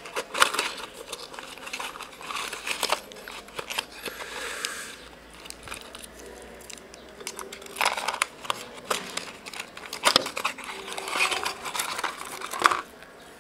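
A small cardboard product box being handled and opened by hand: irregular rustling and crinkling of packaging with light clicks and taps. The sound comes in clusters, eases off for a couple of seconds in the middle, and stops shortly before the end.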